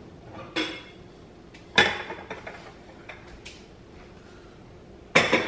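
Kitchenware being handled at a counter: a sharp clink-knock about two seconds in, light scattered ticks, then two more knocks close together near the end, each with a short ring.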